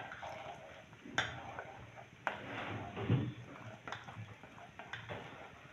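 Spoon stirring soup in a pot while cornflour slurry is poured in from a bowl, with irregular clinks and knocks of the utensils against the pot and bowl about once a second. The loudest is a duller knock about three seconds in.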